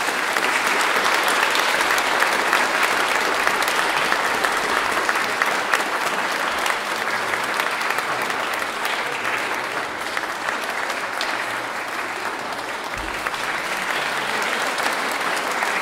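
An audience applauding: dense, steady clapping of many hands that eases a little about ten seconds in.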